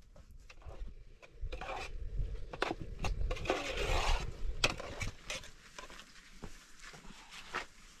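Cooking-pot sounds: scattered clinks and knocks of metal pots and utensils, with a stretch of scraping and stirring in a pot over a wood fire around the middle.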